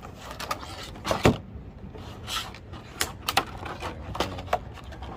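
A stapled plastic bag being pulled open and the plastic trim pieces handled out of it: irregular crinkles, rustles and sharp clicks, the loudest about a second in.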